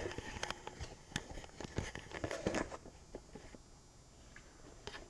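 Handling noise: a scatter of small clicks, taps and rustles, busiest in the first three seconds and then quieter.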